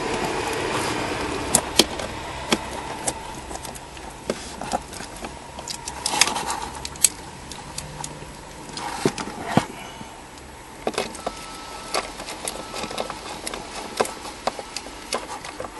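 Scattered small clicks, taps and rustling of hand work: screws being started by hand into the plastic housing of a replacement blower motor under a car dashboard. The clicks come at irregular spacing, not as a steady ratchet rhythm.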